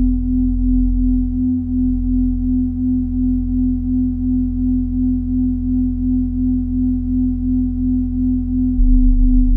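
Minimal electronic drone music: one pure, steady tone with a slow, even wobble, held over a deep sustained bass. Near the end the bass starts pulsing rapidly.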